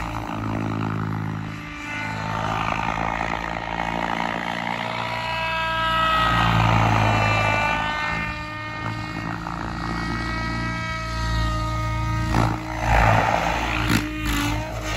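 Banshee 850 radio-controlled helicopter in flight: a steady rotor and motor whine that rises and falls in pitch, highest around the middle.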